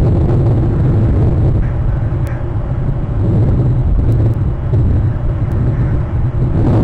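Steady low rumble of wind buffeting the nest camera's outdoor microphone.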